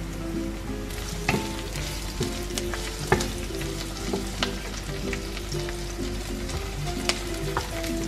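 Sliced shallots and ginger sizzling in hot oil in a nonstick pan, stirred with a wooden spatula that knocks against the pan a few times.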